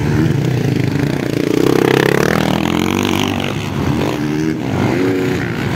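Motocross bikes racing around a dirt track, their engines revving up and down as riders throttle through jumps and turns, with several bikes heard at once.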